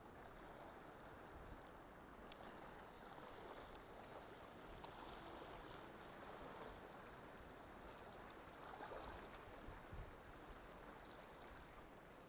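Faint, even wash of calm sea water lapping at breakwater rocks, with a few faint clicks.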